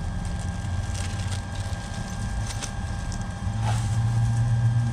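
Steady low machine hum with a couple of thin steady tones above it, and a few faint light clicks.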